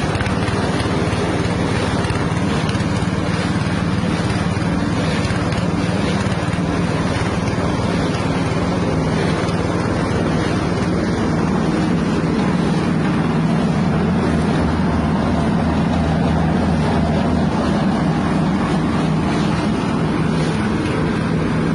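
Grass chopper machine running on its small 6.5 hp petrol engine, a steady loud engine drone with hiss from the spinning cutter. The engine note shifts from about halfway to three-quarters through.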